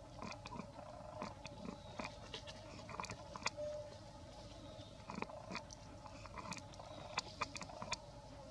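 Young macaque eating fruit: irregular crunchy bites and chewing clicks.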